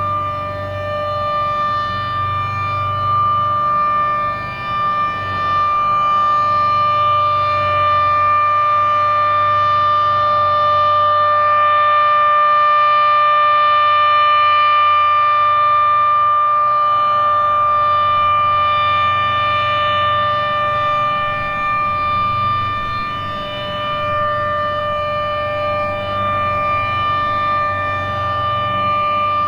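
Federal Signal 7B outdoor warning siren sounding its alert signal, a steady tone at an unchanging pitch. The tone grows louder and softer over several seconds as the rotating siren head sweeps around.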